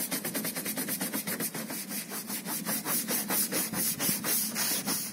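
Stiff hand scrub brush scrubbing a camper van's dirty roof in quick back-and-forth strokes, about five a second.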